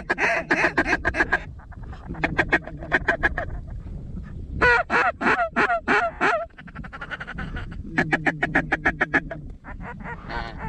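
Mallard-style duck calls blown in fast runs of quacks, about eight a second, in bursts of a second or two with short pauses, the middle run made of falling, drawn-out quacks; calling to work ducks circling the decoys.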